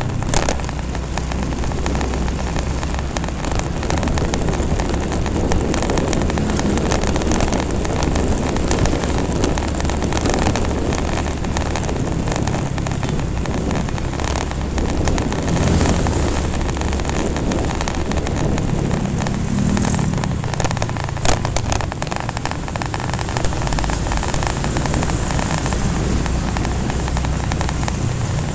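Wind rushing over the microphone of a moving motorcycle, with the running engines of the motorcycles riding in the group underneath.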